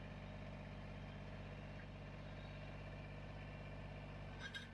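Faint, steady hum of a Kubota BX23S subcompact tractor's three-cylinder diesel engine idling, with a brief click near the end.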